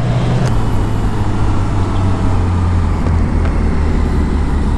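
Motorcycle engine running steadily at low speed in traffic, a continuous low drone with road and traffic noise around it.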